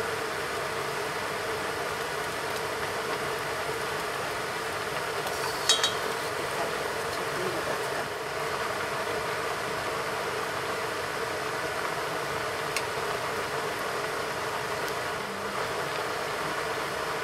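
Steady hiss of a pot of daikon radish boiling hard on a gas stove. A utensil clinks once against the metal pot about six seconds in.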